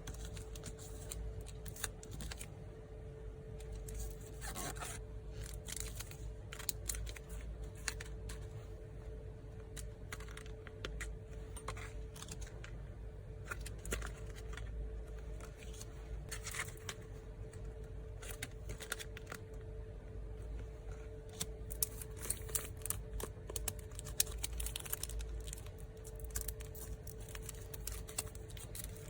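Photocards and their plastic sleeves and paper packaging being handled at close range: a run of light clicks, taps and rustles, over a faint steady hum.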